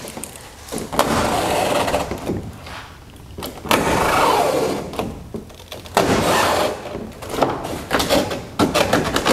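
Utility knife slicing through the 42-year-old fabric covering of a 1949 Piper PA-16 Clipper wing, in about four strokes of a second or so each, each starting sharply.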